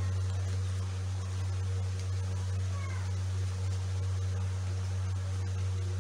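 A steady low electrical hum, unchanging throughout. A brief faint high chirp comes about three seconds in.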